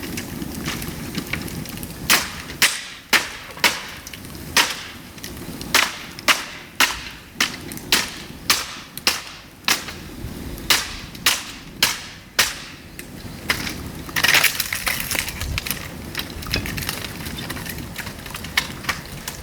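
Dry bamboo giving a quick series of sharp cracks, about two a second, followed by a brief crunching burst near the end.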